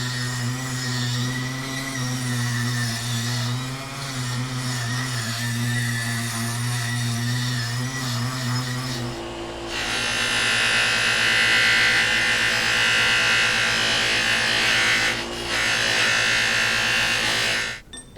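Power polishing wheel running with a steady motor hum. From about ten seconds in, a loud even hiss as a steel auger bit is pressed to the spinning wheel and polished; it stops suddenly just before the end.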